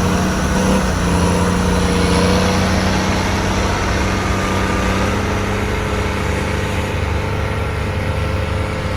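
Motor grader's diesel engine running steadily at a low, even pitch, dipping and settling slightly about a second in.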